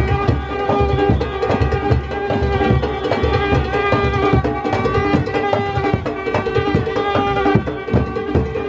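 Junkanoo band playing: hand-beaten goatskin drums keep a dense, fast rhythm while brass, including a sousaphone, holds sustained notes over them.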